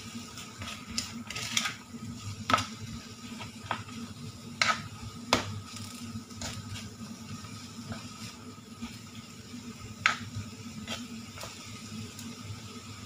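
Spatula scraping and knocking against a wok as pork, chillies and ginger are stir-fried in a little sizzling oil, with irregular sharp clacks every second or two over a steady low hum.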